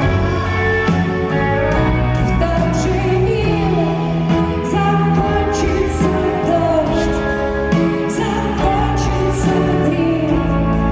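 Live rock band heard from the audience through an arena's sound system: a female lead vocal over sustained chords and bass, with drums keeping time and cymbal hits cutting through regularly.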